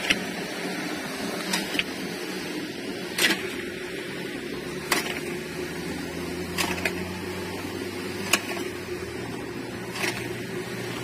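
Electric motors of a concrete block machine running with a steady hum, and a sharp tick about every second and a half.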